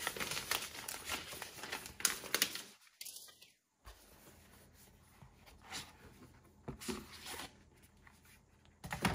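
Packaging being handled and torn while unboxing: rustling and crinkling paper or plastic with scattered taps. It is busiest in the first couple of seconds, drops out completely for about a second around three seconds in, then goes on as quieter handling.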